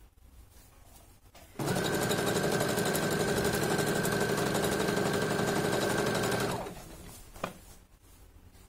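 Brother FS-101 sewing machine stitching a seam at a steady speed. It starts about one and a half seconds in, runs for about five seconds, then slows to a stop, followed by a single sharp click.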